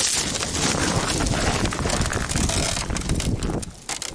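Wind rushing across the microphone over a dense crackling and crunching of lake ice. The rushing eases about three and a half seconds in, leaving separate sharp crunches.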